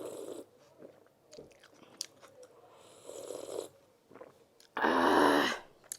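Close-miked eating sounds: chewing and wet mouth noises, with one louder, longer mouth noise just under a second long about five seconds in.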